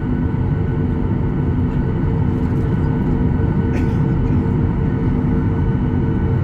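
Cabin noise of a Boeing 737-800 in flight: the CFM56-7B turbofans and airflow make a steady, unbroken rumble with a constant droning hum.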